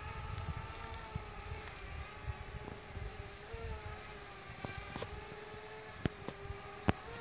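FPV quadcopter drone's motors whining in flight, the pitch wavering slightly up and down, over a low rumble. A few sharp clicks come near the end, the loudest just before it ends.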